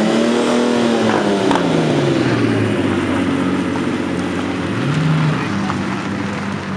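Lamborghini Countach's V12 revving as the car drives past, its engine note rising and then falling away over about two seconds. About five seconds in, a Lamborghini Murciélago's V12 blips briefly, then runs at a steady low note as it rolls by.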